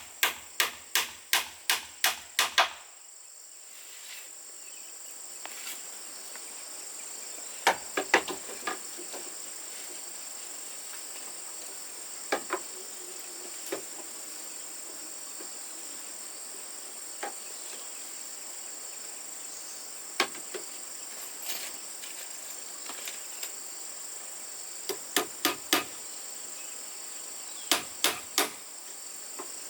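Hammer blows on wood, a quick run of about four strikes a second in the opening seconds, then scattered single strikes and short pairs. Insects call steadily and high-pitched throughout.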